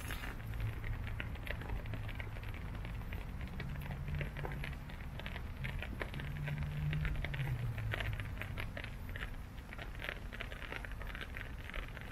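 Rain pattering: many small, irregular drop ticks over a low steady hum.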